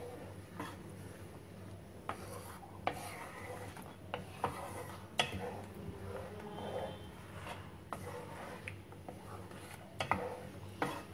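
Wooden spatula stirring thin besan-and-yogurt kadhi in a non-stick pan: sloshing and scraping with scattered irregular clicks and taps against the pan, over a low steady hum.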